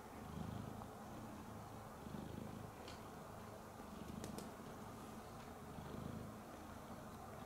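A calico cat purring steadily, the purr rising and falling in a slow rhythm. A couple of faint clicks come near the middle.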